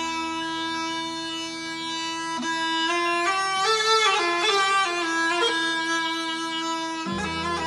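Mijwiz, the Arab double-pipe reed clarinet, playing an ornamented mawwal melody in long held notes with quick turns between them.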